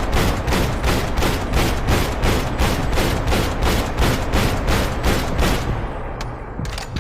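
AK-47 assault rifle firing on full auto in one long continuous burst, about four shots a second, stopping about six seconds in, followed by a few faint clicks.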